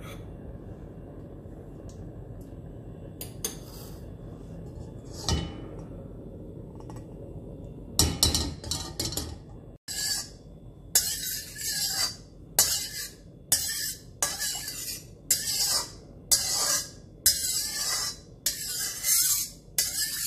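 Steel spatula scraping across the inside of an iron kadhai while spreading melting ghee, in short repeated strokes about one a second over the second half. Before that there is only a low steady hum with a couple of light knocks.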